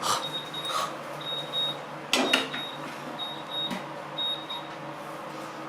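Kitchen timer alarm beeping, short high beeps in pairs about once a second, stopping near the end; the alarm signals that the cookie's baking time is up. A sharp knock and clatter about two seconds in, with a lighter knock later.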